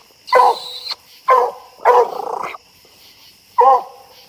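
Coonhound barking at the base of a tree where raccoons are treed, four short barks about a second apart: the hound's tree bark, telling that the quarry is up the tree.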